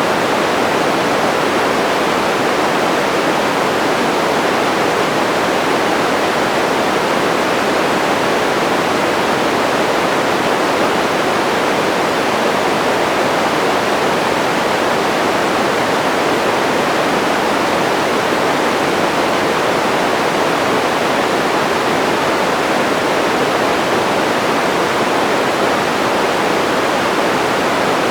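Steady white-noise sleep sound: an even, unchanging hiss, fullest in the middle range and thinner in the lows and highs.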